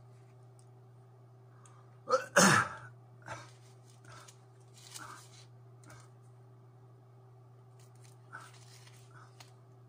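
A man sneezing once about two seconds in, a short voiced onset followed by a loud burst. A steady low hum runs underneath.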